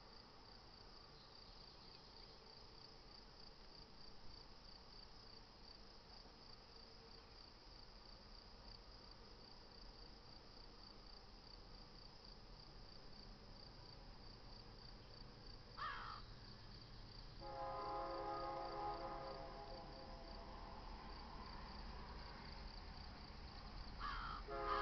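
Insects chirping in a steady, even pulse. From about two-thirds of the way in, the air horn of an approaching GE C44-9W freight locomotive sounds a sustained chord, eases off, then sounds again louder near the end as the train nears the grade crossing and blows for it.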